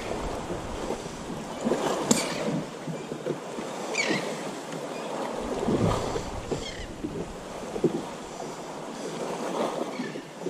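Small waves lapping and slapping irregularly against a boat's hull, with a few sharper splashes.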